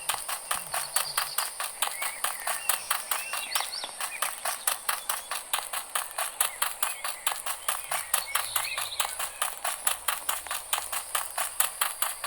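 Fast, even clicking or clopping, about five strokes a second, with faint chirp-like sounds high above it.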